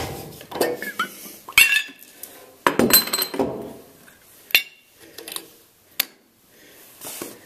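Sharp metallic clinks and clanks with short ringing, a cluster in the first half and single ones a second or so apart later: metal parts of a steam radiator trap and hand tools being handled as its lid comes off.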